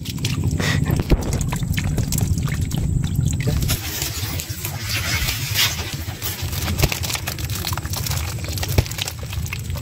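Water trickling and dripping from a bamboo shrimp trap into a woven bamboo basket, with a dense patter of small clicks as live shrimp land and flick against each other and the basket. A low rumble underneath stops about four seconds in.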